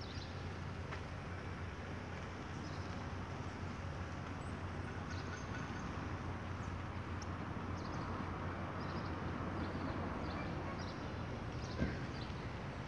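City street ambience: a steady wash of traffic noise that swells slightly in the middle, with short high chirps scattered through and a single sharp knock near the end.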